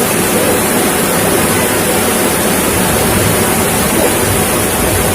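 Heavy rain and rushing floodwater: a steady, loud rushing noise with no breaks.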